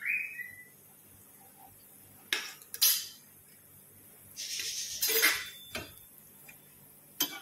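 A metal slotted spoon clinking and scraping against a frying pan while stirring gulab jamun frying in oil: a few separate clinks and one longer scrape about four to five seconds in.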